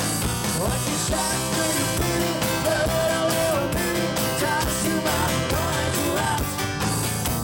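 Live rock band playing: acoustic guitar and electric bass with a singer, with a steady beat.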